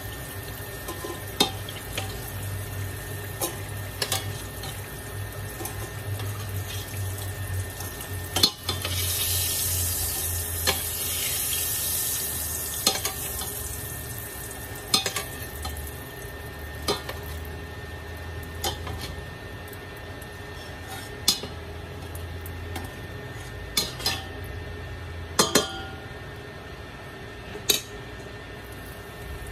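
Hot oil sizzling in a pot as battered vegetable pieces deep-fry, with metal tongs clicking sharply against the pot and a wire strainer many times. The sizzle swells for a few seconds about a third of the way in, over a low steady hum.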